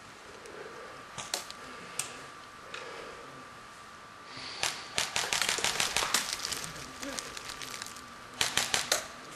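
Airsoft guns firing: a few scattered single shots, then a long rapid string of snapping shots about five seconds in, and a quick burst of about five shots near the end.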